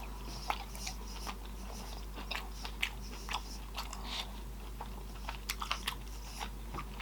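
Close-miked mouth sounds of eating: chewing with a string of irregular, short wet smacks and clicks, over a faint steady low hum.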